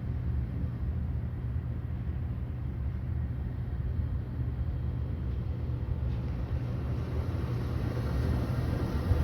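Steady low outdoor rumble without distinct events.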